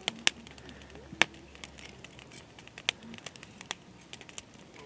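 Irregular sharp crackles and snaps, a few louder ones near the start and about a second in, the rest scattered and fainter.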